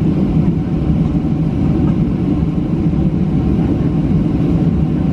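Steady low rumble inside the cabin of a Boeing 737-700 taxiing, its CFM56 engines at low taxi power.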